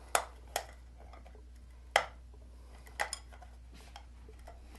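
Hard plastic and metal parts clicking and knocking as they are handled and fitted together: about five sharp, irregularly spaced clicks, the loudest about two seconds in.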